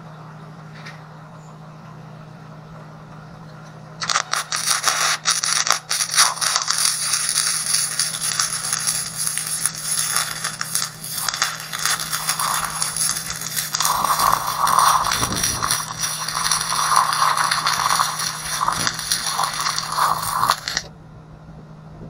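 Wire-feed (MIG-type) welder arc crackling as a bead is laid on steel, starting about four seconds in with a few short breaks at first, then running steadily and cutting off sharply near the end. A steady low hum sits underneath throughout.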